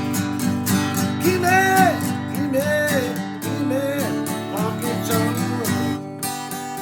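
Instrumental passage of a country-style song: acoustic guitar strumming a steady rhythm. A lead line with gliding, sliding notes plays over it from about a second in until shortly before the end.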